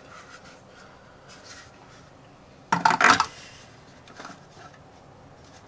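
Parts of a new plastic toilet fill valve being handled and fitted, with light clicks and a louder clatter of knocks about three seconds in.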